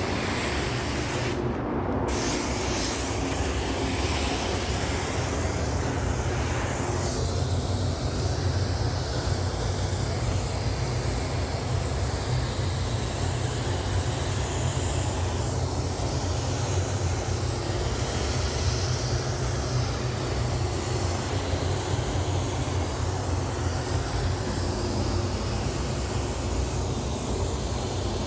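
Iwata Supernova NTEC base-coat spray gun (1.3 tip, 26 PSI) hissing steadily as paint is sprayed, over a steady low rumble. The hiss stops for a moment about two seconds in, then resumes.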